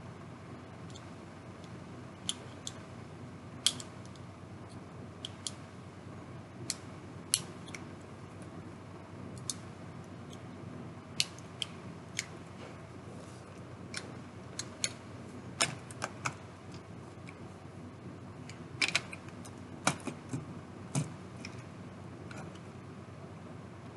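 Plastic Lego bricks clicking as they are handled and pressed onto a model boat: scattered sharp clicks at irregular intervals, a few in quick clusters, over a steady low background hum.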